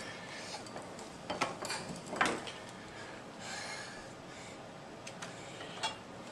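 Glass bottles in a refrigerator knocking and clinking together as a small child handles them: a cluster of sharp knocks a second or two in, a short rustle, and one more knock near the end.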